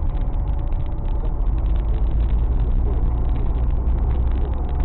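Car driving, heard from inside the cabin through a dashcam's microphone: a steady low rumble of engine and road noise with a fine crackle over it.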